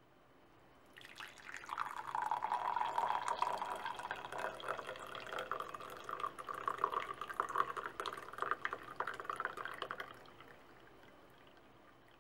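Tea poured in a steady stream into a ceramic mug, a splashing, gurgling trickle. It starts about a second in and fades away near the end as the pour thins.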